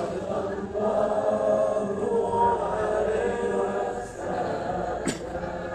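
Many voices chanting sholawat together, a devotional Islamic song in praise of the Prophet, with one short sharp click about five seconds in.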